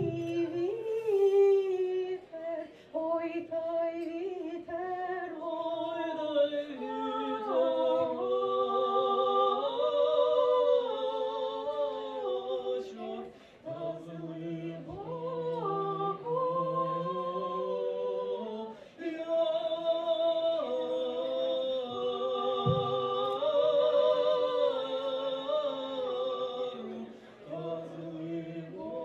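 A woman and a man singing a song together into a microphone, unaccompanied, in slow phrases of long held notes with brief pauses between them.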